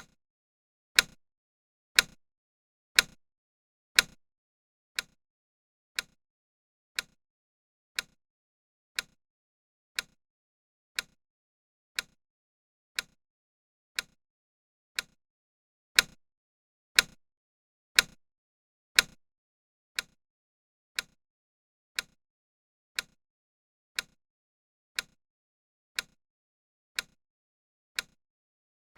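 Countdown timer ticking once a second, each tick a sharp click. The ticks are louder for four beats about a second in and again for four beats about halfway through, and quieter in between.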